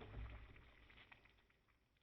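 Near silence: a faint low thud and a few soft clicks in the first half second, then nothing.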